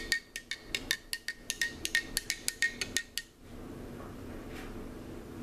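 A spoon stirring a protein shake in a tall drinking glass, clinking quickly against the glass about six times a second. The clinking stops about three seconds in, leaving a low steady hum.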